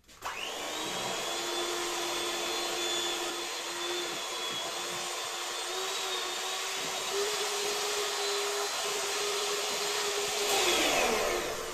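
Electric hand mixer running steadily, its beaters stirring alginate powder and water in a plastic bucket. The motor starts at once, holds a steady whine, and winds down, falling in pitch, near the end.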